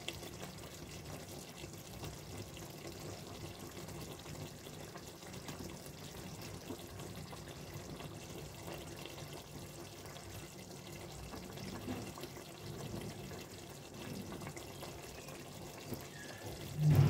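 Aloo keema curry simmering gently in a pot on a low gas flame, a faint steady bubbling. A brief louder low sound comes at the very end.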